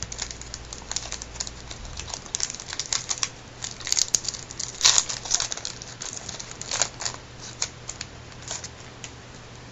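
Crinkling and crackling of a baseball card pack wrapper being opened and handled, in irregular bursts, loudest about halfway through.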